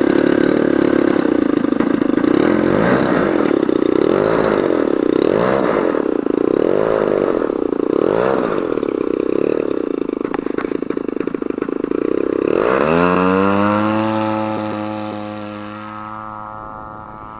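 3D Hobby Shop Edge 540 radio-controlled aerobatic model plane's motor and propeller, running on the ground with a loud, wavering note. About twelve and a half seconds in it is throttled up sharply for the takeoff run: the pitch rises and then holds steady while the sound fades as the plane pulls away.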